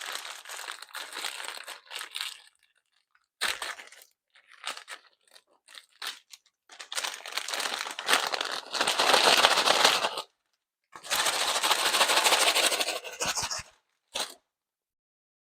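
Paper microwave bag of pork rind pellets being handled, crinkling and shaken, with a dense crackling rattle in two long runs around the middle and a few shorter clicky bits before them.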